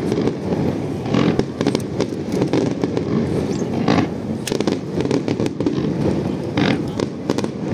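Aerial fireworks bursting in close succession: a continuous low rumble of booms, broken by many sharp cracks and crackles.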